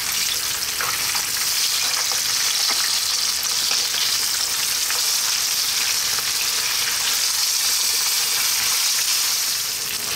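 Flour-dusted whole sardines shallow-frying in hot sunflower oil in a skillet: a steady sizzle.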